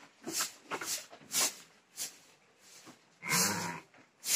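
Sheep snuffling at close range, with a run of short breathy sniffs about twice a second, then a short, low call a little over three seconds in.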